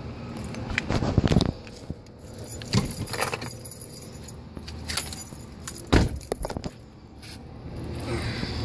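Jingling and clicking of a service dog's vest and lead hardware, in scattered bursts, with a heavy thump about six seconds in.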